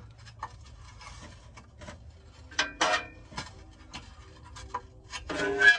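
Light, irregular metallic clicking with two louder metal clanks, about two and a half seconds in and again near the end: hand tools working at a rusted, seized exhaust bolt on the catalytic-converter pipe.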